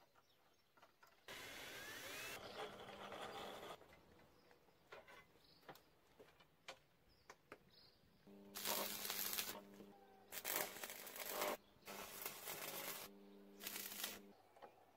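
Faint ticking and scraping of hand work, then a small electric power tool run in four or five short bursts, each starting and stopping abruptly at a steady pitch.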